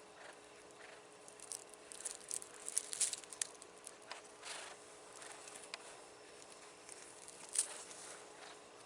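Rustling and scratchy crackles of a cat's fur being stroked by hand close to the microphone. They come in a flurry from about a second and a half to three and a half seconds in, with one more sharp crackle near the end.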